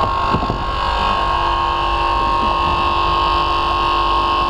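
Steady mechanical drone of an engine-driven hydraulic rescue-tool power unit running, with a constant high whine over a low engine rumble.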